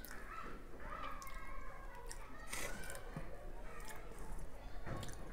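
A metal spoon pushing into a soft cream-filled chocolate cake, with soft squishing and a few sharp clicks scattered through.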